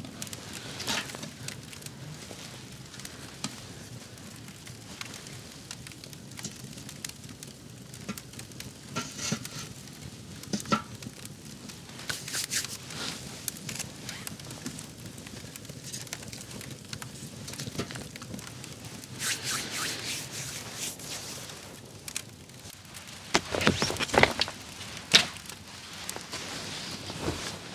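Small wood campfire crackling with sparse, irregular pops as it dies down, down to a faint ember. Near the end there is a cluster of louder knocks and rustles.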